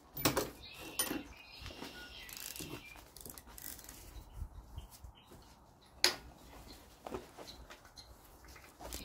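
Hand tools on the head bolts of a Dodge 360 Magnum V8: a few faint, sharp metallic clicks and knocks as the bolts are loosened by hand, the loudest about six seconds in, with a brief high metallic ringing early on.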